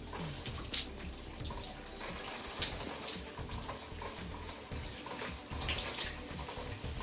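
Running water hissing steadily, with a few short splashes as it hits something, about a second in, near the middle and near the end.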